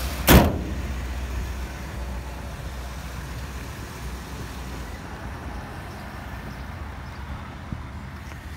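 The hood of a 1957 Ford Thunderbird slammed shut about a quarter second in, the loudest sound. After it the car's 312 cubic-inch D-code V8 idles steadily and low.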